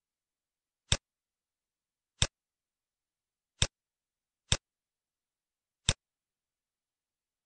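Five sharp, isolated computer mouse clicks, spaced one to one and a half seconds apart, with dead silence between them.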